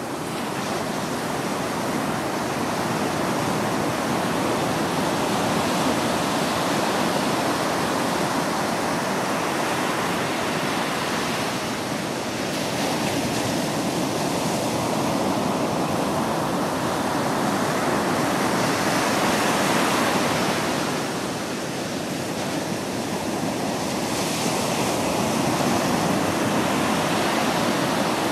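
Ocean waves breaking and washing on a shore in a continuous rush of surf, swelling and easing slowly every several seconds.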